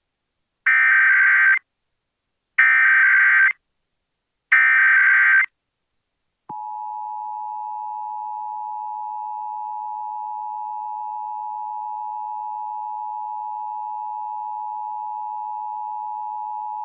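Emergency Alert System test: three one-second bursts of SAME header data, a buzzy digital warble, about two seconds apart, then about six and a half seconds in the EAS two-tone attention signal (853 and 960 Hz together), held steady and quieter than the bursts.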